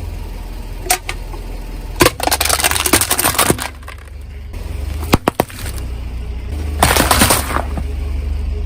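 Car tyre rolling over and crushing crunchy objects: dense runs of crackling and snapping, a couple of single sharp cracks, and two sharp pops close together a little past the middle, over the low steady hum of the car.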